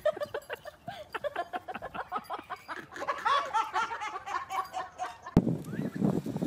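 A person laughing hard in a long run of short laughs that rise and fall in pitch. About five seconds in, it breaks off at a sharp click and a louder rough noise takes over.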